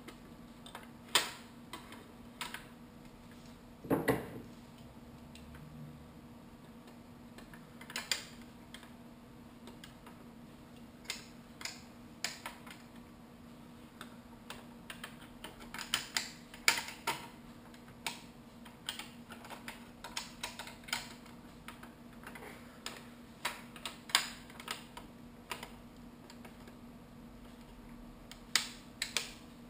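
Irregular sharp clicks and taps of hard objects, with one heavier knock about four seconds in.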